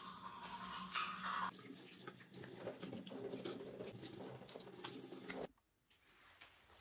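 Bathroom faucet running into a sink, with hand splashes as water is scooped up to rinse the mouth after brushing teeth; the first second and a half is toothbrush scrubbing, and the water sound cuts off abruptly about five and a half seconds in.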